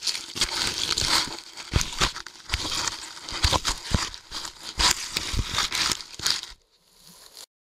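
Metal-detecting hand digger stabbing and cutting into dry grass and hard soil: repeated crunching, scraping and rustling with many sharp stabs. It stops near the end.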